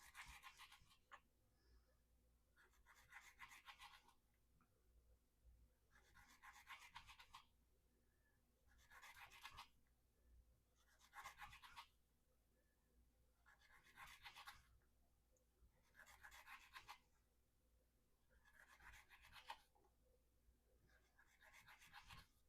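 Spyderco Endura 4's VG-10 steel blade slicing through rope in repeated cutting strokes: about ten scratchy cuts, each lasting about a second, every two seconds or so. This is an edge-retention cut test, counting cuts to see how long the edge holds.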